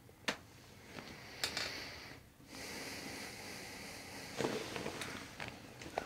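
A person breathing slowly through the nose, two long breaths in and out with a short pause between them. Soft clicks and rustles come from hands shifting around the head and neck on a chiropractic table, the sharpest click about a third of a second in.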